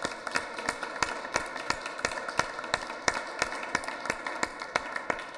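Small audience applauding, many separate hand claps heard distinctly in a steady patter.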